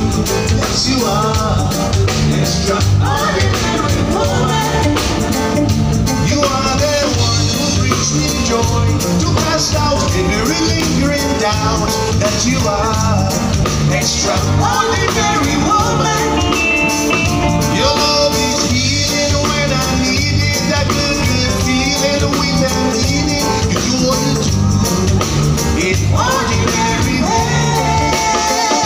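Live reggae band playing through PA speakers: drum kit keeping a steady beat under electric guitars and bass, with a lead singer and backing vocalists.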